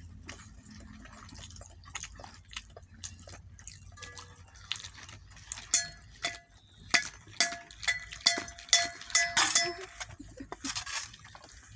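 A stainless steel bowl knocked again and again, giving sharp metallic clinks that each ring briefly at the same pitch. They start about four seconds in and come in an irregular run until near the end.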